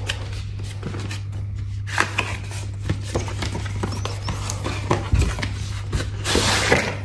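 Hands handling and opening a stiff cardboard watch box: a run of taps, clicks and scrapes of card, with a longer rubbing swish near the end. A steady low hum runs underneath.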